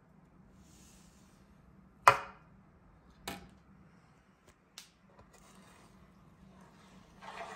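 A knife scoring slashes into a bran-coated loaf of dough in a metal baking tray: soft scraping as the blade draws through, and sharp knocks and clicks as it meets the tray, the loudest about two seconds in and a smaller one a second later.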